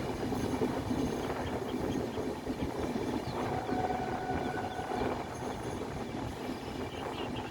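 Express passenger train running through a curve, its wheels rumbling steadily on the rails. A faint high squeal comes from about three and a half to five seconds in, typical of wheel flanges on the curved track.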